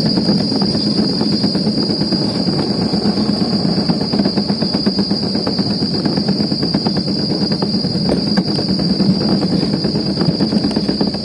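Luge cart rolling fast down a concrete track: a continuous rumble of the wheels with a constant fine rattle.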